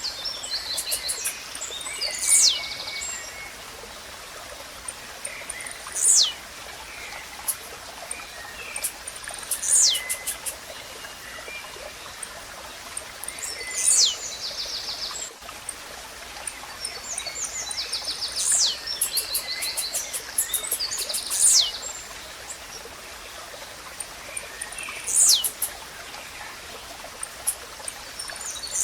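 Blue-black grassquit (tizil) repeating its short, sharp downslurred song note about every three to four seconds, with other birds chirping between the notes over a steady rush of running water.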